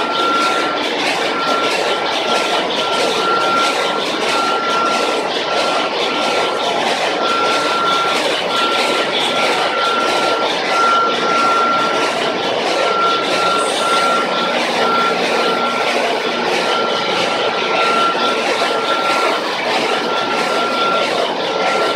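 Ship's engine-room machinery running: a loud, steady, even din from the engines and pumps, with a single high-pitched beep sounding on and off irregularly over it.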